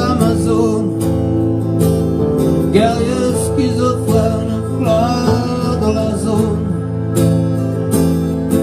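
Live band music: guitars strumming under a man's singing voice, the sung line rising and falling in phrases.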